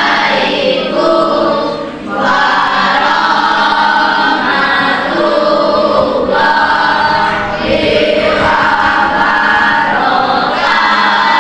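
A group of voices singing together, held notes in phrases with short breaks between them.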